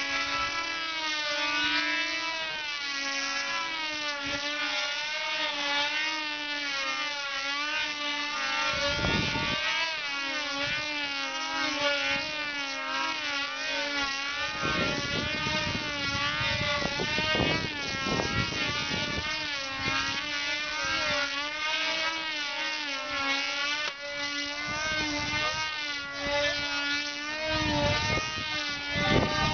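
Small two-stroke glow engines of control-line combat model planes buzzing at high revs. Their pitch wavers up and down continuously as the planes circle and manoeuvre, and occasional low rumbling gusts break in.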